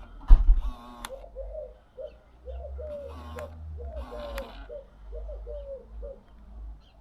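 Pigeon cooing: a run of short, low, repeated coo notes for several seconds, with a few higher calls from another bird mixed in. A brief low rumble, like wind or handling on the microphone, comes just under a second in.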